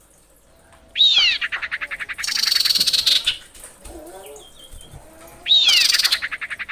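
Female common iora calling: a sharp downward sweep that runs into a fast, even, rattling trill, given twice, about a second in and again near the end, the first one longer and harsher. Faint softer bird notes sit between the two calls.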